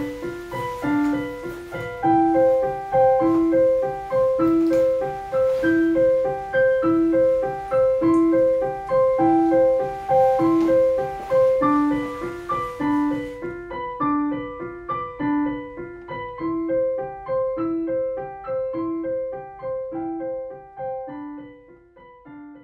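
Solo piano background music: a gentle, repeating pattern of single notes, fading out near the end.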